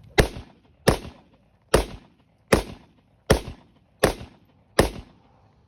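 AK-47 rifle firing seven shots in steady semi-automatic succession, evenly spaced at a little more than one a second, each crack followed by a short echoing tail.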